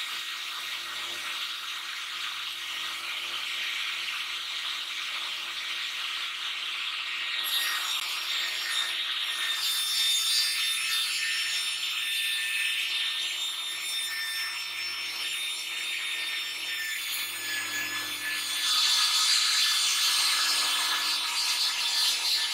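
Sliding panel saw fitted with a ripping blade, ripping a thick timber board lengthwise: a steady cutting noise as the board is pushed through. A high whine joins about a third of the way in, and the cut gets louder near the end. The board takes a bit of effort to feed through the blade.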